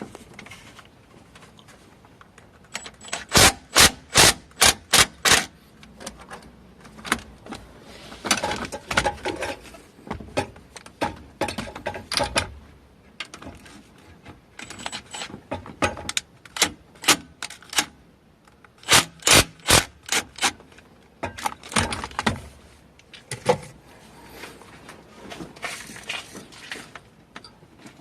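Hand tools working on metal: clusters of sharp metallic clicks and scrapes, several strokes a second, coming in short runs with pauses between.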